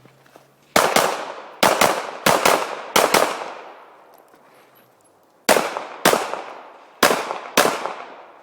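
Pistol shots fired in two strings: a fast run of shots in quick pairs over the first three seconds, then after a pause of about two seconds four more shots roughly half a second apart. Each crack rings out in a decaying echo.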